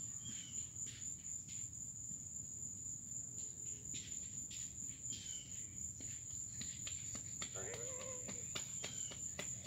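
Steady, high-pitched chorus of crickets, faint, with a few short high chirps and scattered light clicks over it.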